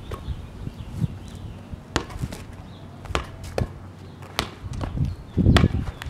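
Red rubber playground ball smacking on a concrete driveway and being slapped back by hand during a four-square rally: a string of sharp, separate smacks about every half second to a second, with a louder, deeper thump near the end.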